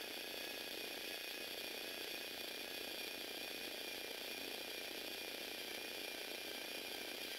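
Small electric motor driving the plastic gear train of a motorized Lego Technic 8258 Duty Wrecker, running steadily: a high whine over a fine, even clatter of gear teeth.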